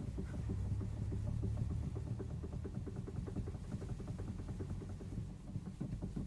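Honda Fit steering rack clunking in a rapid series of small dry knocks as the steering wheel is rocked back and forth with the car switched off, over a steady low hum. The knocking is the test for a worn steering box.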